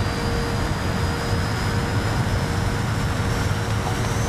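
Aircraft engine running: a loud, steady rush of noise with a low hum underneath and a thin high whine that slowly rises in pitch.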